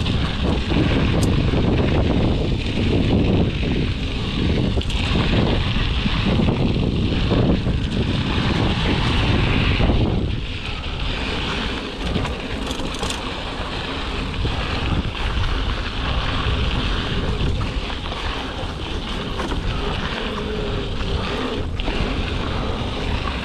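Wind rushing over the camera's microphone as a Giant Talon hardtail mountain bike rolls along dirt and gravel singletrack, its tyres crunching and the bike giving the odd click over bumps. The rush is strongest in the first ten seconds, then eases a little.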